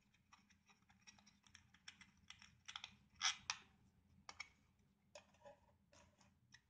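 Faint, irregular small clicks and taps of hands handling an action camera's clear plastic waterproof housing and its flat mount while working the mounting screw loose.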